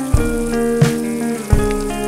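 Background music of sustained chords with a soft beat about every 0.7 seconds, over the steady hiss of falling rain.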